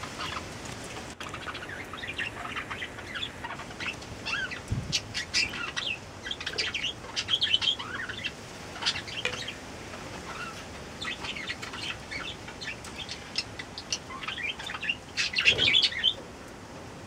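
Small birds chirping in short, high calls throughout, with a louder flurry of chirps about a second before the end. Through them come light clicks of a ring-necked dove's beak pecking at egg in a glass jar.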